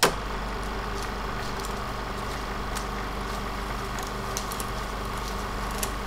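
Film projector sound effect: a steady mechanical whir over a low hum, with faint scattered clicks and crackle, starting abruptly.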